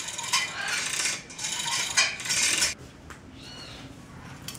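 Metallic rattling and clinking of a roller chain working over a sprocket ratchet on a bicycle-hub axle, as a lever pulls the chain up and down. It becomes much quieter near the end.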